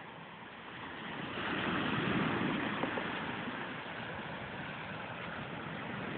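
Sea surf on a rocky shore: a steady rushing hiss that swells for about two seconds, starting about a second in, then settles.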